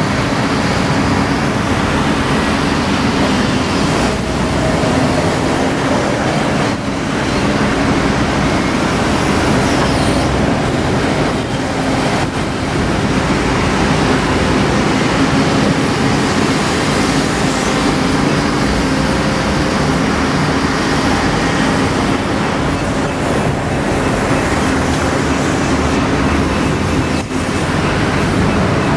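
Heavy diesel construction machinery running: a steady engine drone with a low hum, with a few knocks and clanks now and then.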